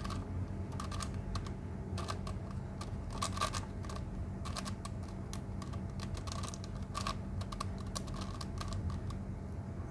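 Plastic faces of a Sengso Crazy Megaminx puzzle clicking and clacking as they are turned by hand, in irregular quick runs of turns.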